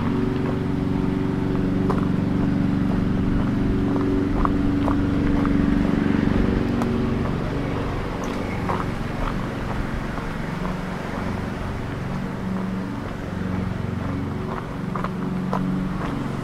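A motor vehicle's engine running with a steady low tone, strongest in the first half and fading lower after, with light scattered footstep clicks on a gravel path.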